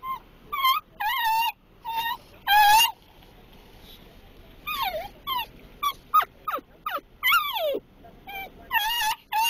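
Dachshund whining in a string of high, wavering calls, several of the longer ones sliding down in pitch, with a short pause a few seconds in. Excited whining that gets worse the closer it gets to its treats.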